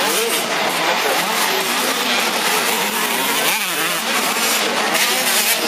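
85 cc two-stroke motocross bike engines revving on and off the throttle, several overlapping engine notes rising and falling, with one sharp swing in pitch about three and a half seconds in.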